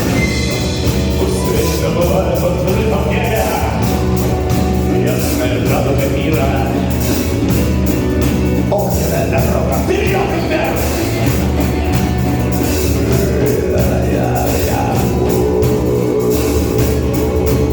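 A live rock band playing a song, with drums, bass and guitar, steady and loud throughout.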